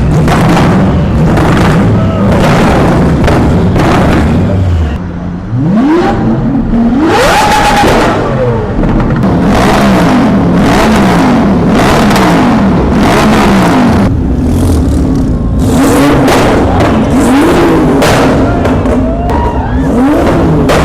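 Performance car and motorcycle engines revving loudly. About six seconds in, one engine's pitch rises sharply and holds high. A run of quick rev blips follows, over a steady exhaust drone, with repeated sharp sudden sounds throughout.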